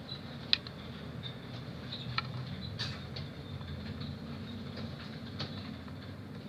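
Lovebirds giving short, high-pitched chirps and squeaks every second or two, the sharpest near the start, over a steady low rumble.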